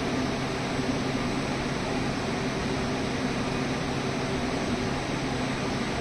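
Steady machine noise: a low hum under an even hiss, holding unchanged throughout.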